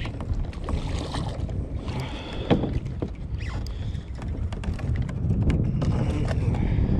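Wind buffeting the microphone over open water, with splashing and scattered sharp knocks as a hooked sheepshead thrashes at the surface and is swung up beside the kayak; one louder knock about two and a half seconds in.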